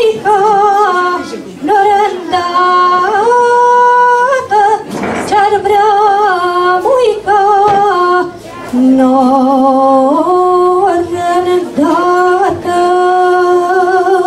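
A young woman's solo voice singing a slow Romanian doina unaccompanied into a microphone, with long held notes, vibrato and ornamented turns between short breaths.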